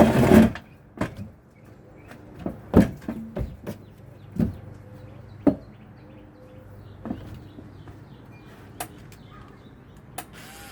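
Irregular knocks and clicks of hands working on ceiling-fan hardware, tightening parts, loudest near the start and again around three and five and a half seconds in.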